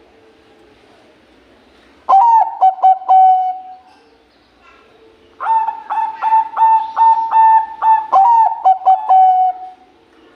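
Zebra dove (Bangkok-type perkutut) cooing: a short phrase of coos about two seconds in, then a longer run of quick repeated coos ending in a held note near the end.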